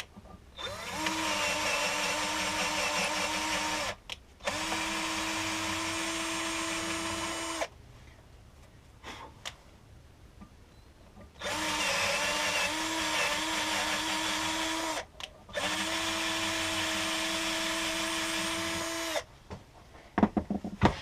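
Electric drill boring a hole in four runs of about three and a half seconds each, in two pairs with a pause between the pairs. The motor's pitch wavers as each run bites in, then holds steady.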